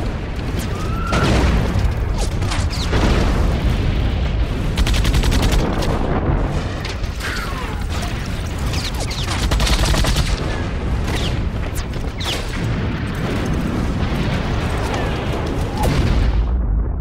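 World War I battlefield sound: a dense, continuous volley of gunfire with booming shell explosions over a constant deep rumble.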